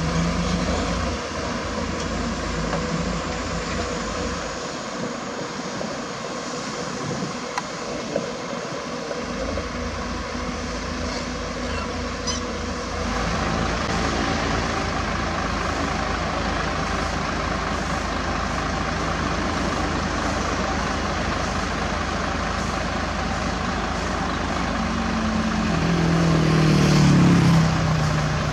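Heavy diesel truck engine running steadily. Near the end a louder engine note with a wavering pitch rises and then falls away.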